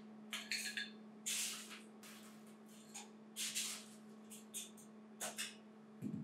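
Crushed ice being spooned into a rocks glass: a series of short crunchy scrapes and rattles of ice, with a glassy clink about half a second in. A dull knock near the end, as the glass is set or shifted on the bar. A faint steady hum runs underneath.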